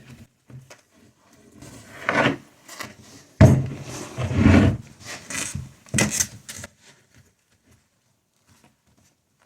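A knobby rubber bicycle tire being worked by hand onto a wheel rim: rubbing and scraping of rubber against the rim, loudest in the middle, then going quiet for the last couple of seconds.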